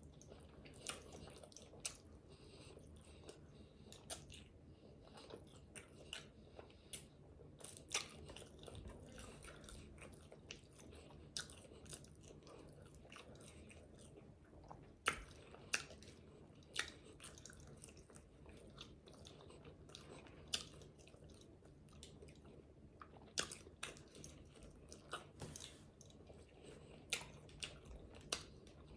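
Close-miked eating of fried chicken wings: chewing and biting, with irregular crisp crunches and mouth smacks.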